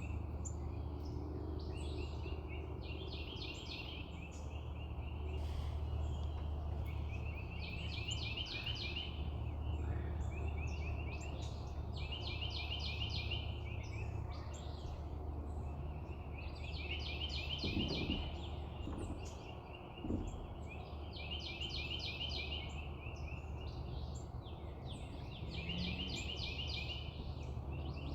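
A songbird singing the same short, fast trilled phrase over and over, about every two to three seconds, over a steady low rumble.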